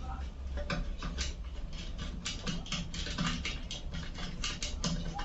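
Quick, irregular clicking and scraping of stiff insulated wire and a screwdriver being worked in among the MCBs of a plastic distribution box. The clicks get denser about two seconds in.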